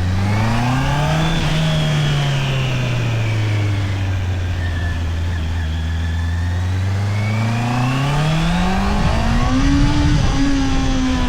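Honda CBR650R's inline-four engine through its stock exhaust: it revs up, eases off to a low steady note for several seconds, then pulls up through the revs again to a high peak near the end, with a short dip of a gear change. Wind noise runs under it.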